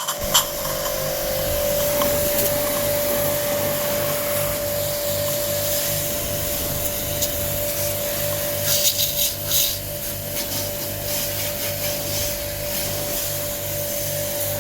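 Jet pump (portable pressure washer) running steadily for an air-conditioner wash, with a constant whine and a regularly pulsing low hum. A few short noisy bursts come about nine to ten seconds in.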